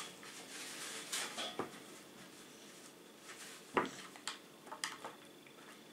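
Light knocks, clicks and rustles of small hands handling a carrot and vegetable scraps on a newspaper-covered board at a kitchen table. The loudest knock comes a little under four seconds in, followed by a few quick light clicks.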